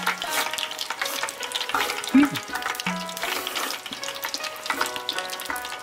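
Tempura deep-frying in a pan of hot oil: a steady crackle and bubbling, with soft background music.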